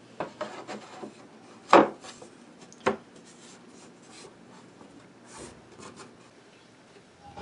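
Plywood being handled, rubbing and scraping, with two sharp knocks about two and three seconds in, the first the loudest.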